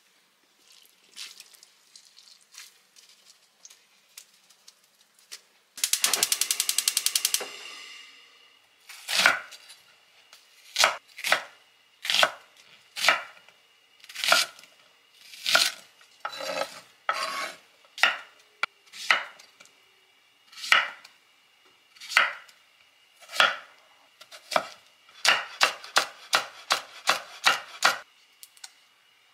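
A chef's knife chopping onion and green chili peppers on a wooden cutting board, in single strikes about a second apart, then a quick run of chops near the end. Before the chopping there is faint handling of greens, and about six seconds in a brief, loud, rapid rattle.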